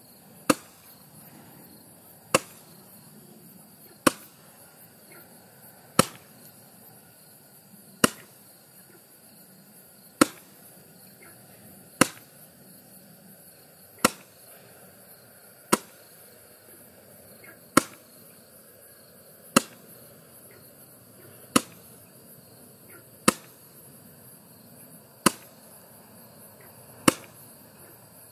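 Roman candle firing about fifteen shots, one sharp bang roughly every two seconds, over a faint steady hiss.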